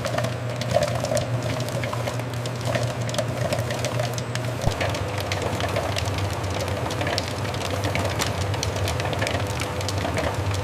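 Popcorn processing machinery running with a steady hum, under dense, irregular crackling and ticking from popcorn.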